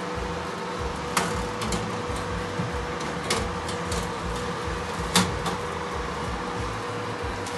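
A metal baking tray being slid into an oven and onto the rack: several sharp metal clanks and knocks, the loudest about five seconds in, over a steady background hum.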